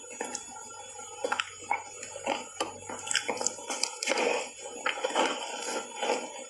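Ice bar coated in matcha powder being bitten and chewed, with irregular crunches and cracks and a louder crunching bite about four seconds in.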